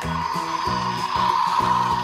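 Background music over the whirring of a toy bullet train's motor and gears, the whirr growing louder near the end as the train comes up close.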